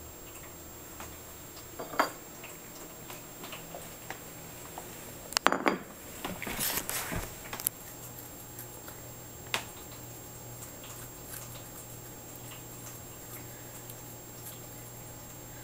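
Domestic cat eating dried bonito flakes off a ceramic plate: faint crunching and small clicks. A knock about two seconds in and a short clatter with handling noise about halfway through are the loudest sounds.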